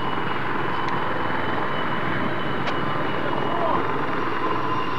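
F-4 Phantom's twin J79 turbojets running steadily as the jet comes in on its landing approach: a steady jet noise with a high whine.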